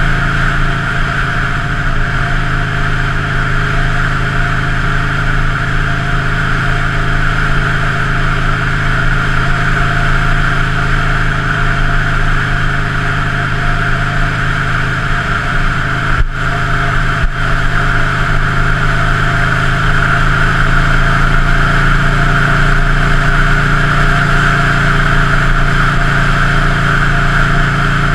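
An engine running steadily at an even speed, with two brief dropouts a little over halfway through.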